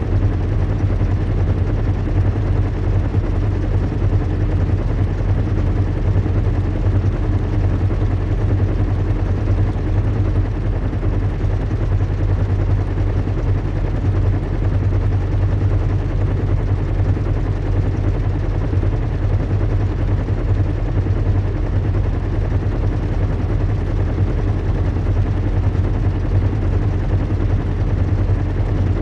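Steady low hum and rumble of a zeppelin airship in flight, a recreated engine-drone ambience that holds the same level without change.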